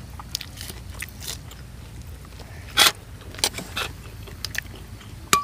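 People eating: chewing and crunching raw greens and food picked by hand, heard as scattered sharp clicks, the loudest about three seconds in. Near the end a spoon clinks on a bowl with a brief ring, over a low steady rumble.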